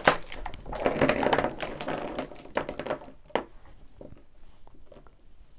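Plastic marker barrels clicking and clattering as a handful of Copic markers is handled and counted, with some rustling. The handling is busy for about three seconds, then one sharp click, then only faint small ticks.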